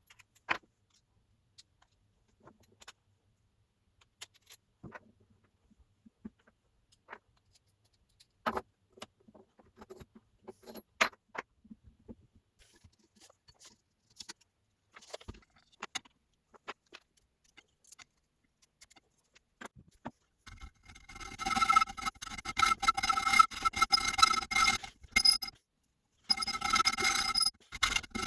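Metal parts clinking and tapping now and then, then from about twenty seconds in a sustained scraping of metal on metal with a ringing metallic tone, stopping briefly before carrying on.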